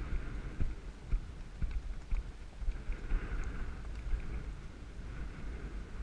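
Wind rumbling on the microphone with irregular low thumps from the camera being jostled on horseback.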